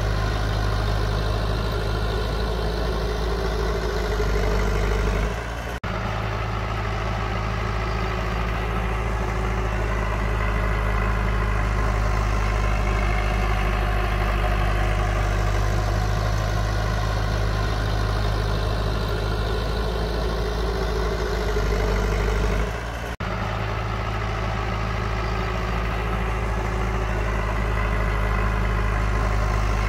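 Heavy diesel engine of construction machinery running steadily, with a strong low drone. The sound breaks off sharply and resumes twice, about six seconds in and again about twenty-three seconds in.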